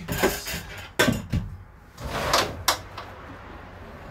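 A few sharp knocks and a short scrape from handling a camper dinette's removable table leg just taken off its floor mount.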